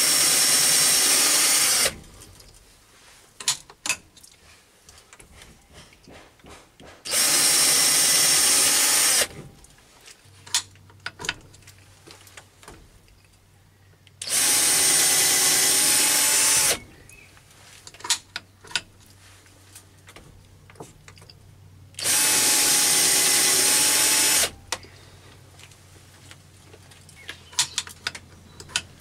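An electric drill driving a right-angled tool-post drill head, spot-drilling equally spaced holes into the face of work in a lathe chuck. It runs in four bursts of about two seconds each, roughly seven seconds apart, with light clicks between the bursts and a low hum joining about a third of the way in.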